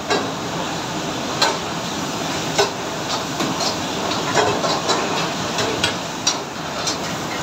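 Steel ladles clanking against woks and pans at irregular intervals, about one strike a second, over a steady rush of gas burners and frying.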